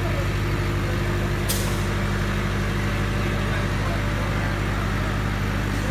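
Diesel engine of a 10 kW soundproofed generator set running steadily, a constant low drone. A brief high hiss comes about a second and a half in.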